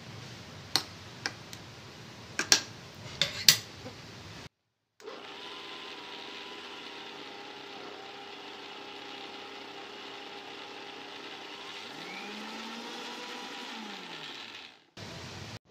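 A steel spoon clinks and scrapes against a steel mixer-grinder jar of powdered cashews. After a short break, the electric mixer grinder runs steadily for about ten seconds, grinding the cashews, which are still powder, toward a paste that will release their oil, then stops.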